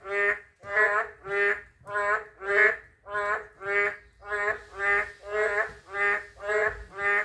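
Boreal digging frogs (Kaloula borealis) calling: a steady series of short croaks, each a stacked tone, repeated about twice a second.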